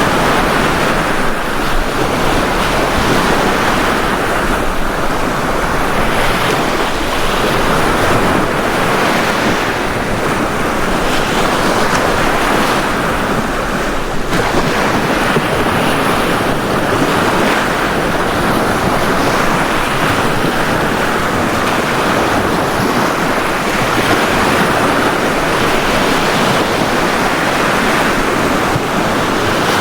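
Ocean waves breaking and washing on a beach in a continuous surf, swelling and easing every few seconds.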